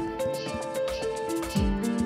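Background music with a steady beat: deep electronic kick-drum thumps, light ticking percussion and held keyboard-like notes.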